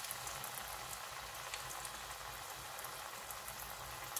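Chana dal fritter (parippu vada) deep-frying in hot coconut oil in a wok: a steady, dense sizzle and crackle of bubbling oil around dough that has just gone into the oil.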